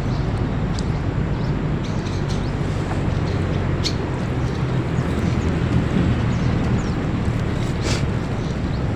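A steady low engine drone under a broad wind-like noise, with a few short splashy clicks as a wet gill net is hauled out of the water by hand.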